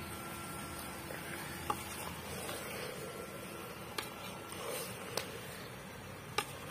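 A long metal ladle stirring thick chicken curry in a metal pot over a wood fire, with four sharp clicks spread through.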